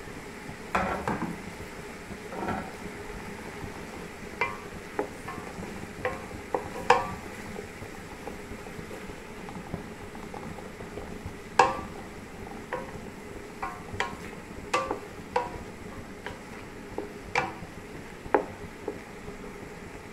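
Chopped tomatoes, onions and green peppers sizzling in oil in a cooking pot with a steady hiss, while a spoon stirs them, clinking sharply against the pot at irregular moments. There are a couple of duller knocks about a second and two and a half seconds in.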